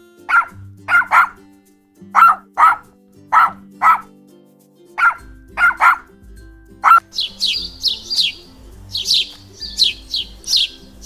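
A dog barking, mostly in pairs of short sharp barks, for about seven seconds, then a bird chirping rapidly in short high notes to the end. Background music plays steadily underneath.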